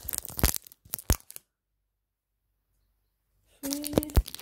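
Crinkling and tearing of the plastic wrapping of a Mash'ems capsule being opened, with crackling clicks, broken by about two seconds of dead silence before the crinkling resumes.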